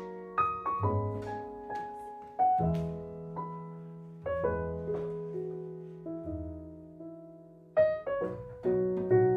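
Background music: a piano playing a slow melody over held low notes, each note struck and ringing away.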